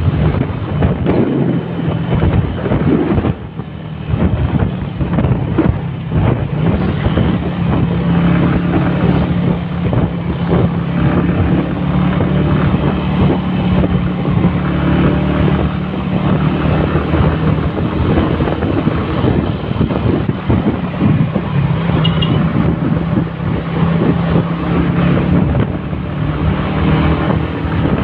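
Motorcycle engine running steadily while riding, heard from the bike itself, with wind buffeting the microphone. The sound dips briefly about three and a half seconds in.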